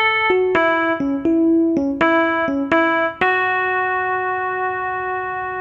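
Yamaha digital piano playing a quick run of about ten notes, then one held note that rings on and slowly fades.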